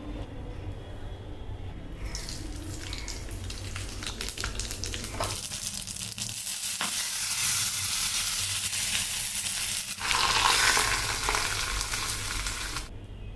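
Dosa batter sizzling on a hot griddle, over a steady low hum. The sizzle starts about two seconds in, with scattered crackles at first, grows sharply louder about ten seconds in, and cuts off near the end.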